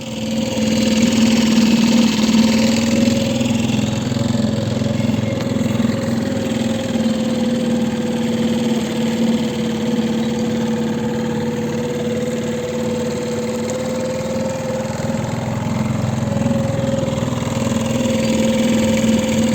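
Mercury 3.5 outboard motor running at a steady speed, a constant hum with a steady pitch, while still being broken in.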